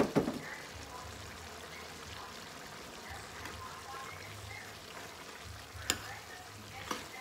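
Bottle gourd and tomato curry sizzling in a metal pan as it is stirred with a metal spoon, with a couple of sharp clinks of the spoon against the pan near the end.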